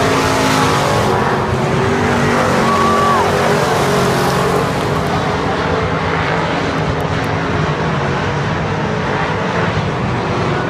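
Dirt-track race cars running laps on an oval, their engines at high revs in a dense, steady drone that eases a little about halfway through.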